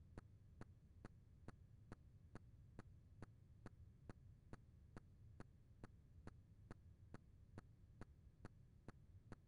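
Near silence: faint, evenly spaced ticks a little over two a second over a low hum.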